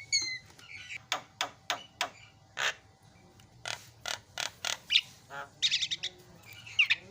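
Javan myna (jalak kebo) singing: a string of short, sharp chips and clicks, one longer note, then a harsh rasping phrase and a short whistle near the end.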